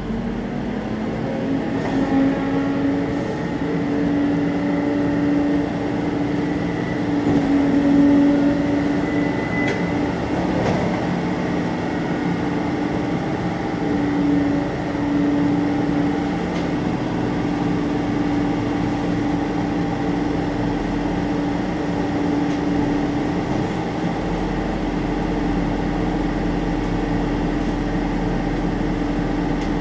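Rollback (tilt-bed) car carrier truck running at a raised idle to drive its hydraulics while the bed is tilted down and a Jeep SUV is loaded onto it. It makes a steady droning hum that rises slightly in pitch in the first couple of seconds and then holds.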